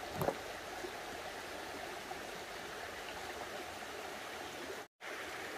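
Shallow mountain stream running over rocks: a steady rush of water that cuts out for a split second near the end.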